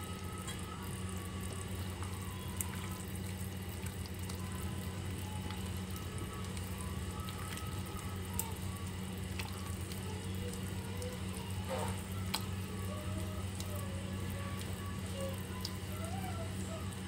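Vegetable soup simmering in a stainless saucepan on a gas burner: a steady low hum under soft watery bubbling, with a few faint clicks as a ladle stirs the pot.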